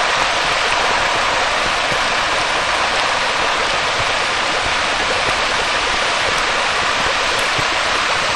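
A steady, even rushing noise like heavy rain, with no tune or beat.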